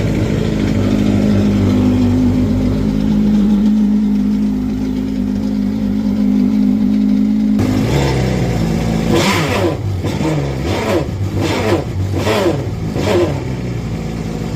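Yamaha 1.9-litre four-cylinder four-stroke engine of a 2024 GP HO WaveRunner idling steadily. About eight seconds in, it is blipped in a series of quick revs, each rising and falling.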